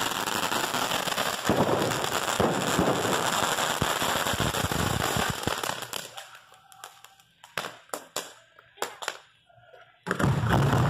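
Fireworks firing in quick succession with dense crackling, dying away about six seconds in to a handful of scattered sharp pops. About ten seconds in, loud firing starts again abruptly with a low rumble as the next fireworks go up.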